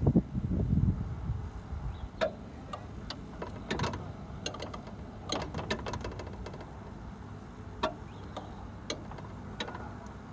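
Irregular light clicks and taps, about a dozen spread unevenly, over a faint steady background. A low rumble dies away in the first second or so.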